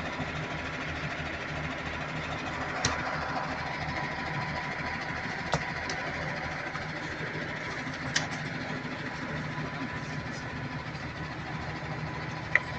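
Heavy diesel engine idling steadily, with four short sharp knocks spread through it.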